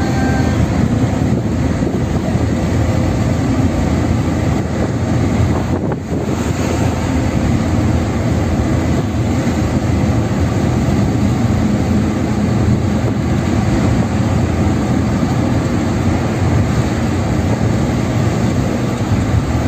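Steady road, tyre and engine noise of a car cruising on a highway, heard from inside the car, with a brief dip in level about six seconds in.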